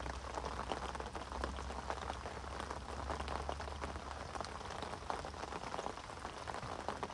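Steady rain falling and pattering, a dense spread of small irregular drop ticks, with a low steady rumble underneath that eases off about halfway through.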